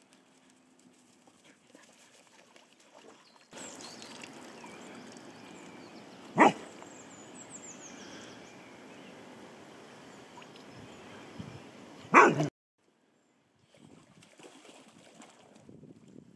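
English springer spaniel giving two short, sharp barks about six seconds apart, over a steady outdoor hiss.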